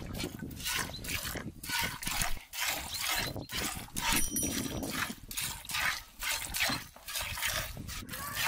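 Cow being milked by hand into a metal pail: rhythmic squirts of milk hitting the pail, about two to three a second.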